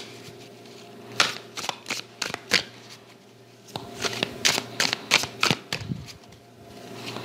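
A deck of cards shuffled by hand: two runs of quick, soft card slaps with a short pause between them.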